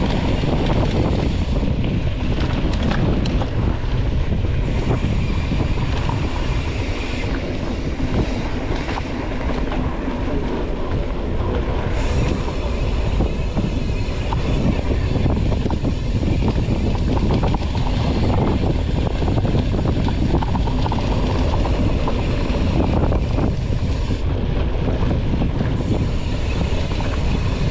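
Mountain bike descending a rough dirt trail: a continuous rumble and rattle of tyres and frame over bumpy ground.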